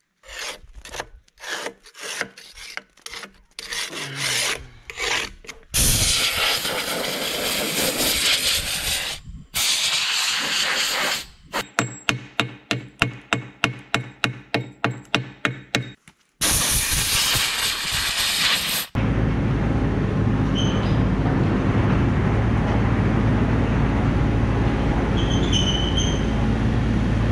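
Hand wire brush scrubbed back and forth over the worn steel edge of an excavator's dozer blade in quick even strokes, about four or five a second, among other short bursts of scraping. In the last third it gives way to a steady machine noise with a low hum.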